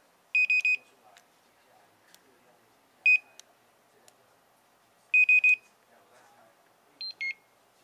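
Handheld barcode scanner beeping as it reads programming barcodes: three quick beeps about half a second in, a single beep about three seconds in, three quick beeps again about five seconds in, then two short beeps, high then low, near the end.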